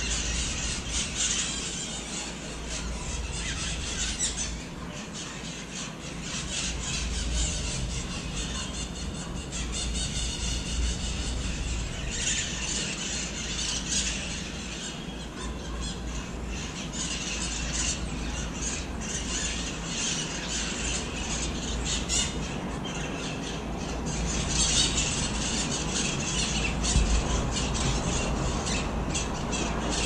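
Parrots squawking and screeching in repeated bursts of harsh, high calls, over a steady low rumble.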